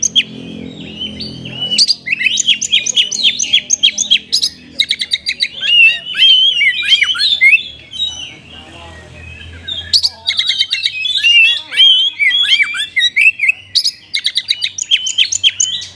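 Oriental magpie-robin (kacer) singing a loud, fast, varied song of chirps, whistles and trills, its song laced with imitated pied triller (kapas tembak) phrases. The song comes in two long runs with a pause of about two seconds in the middle.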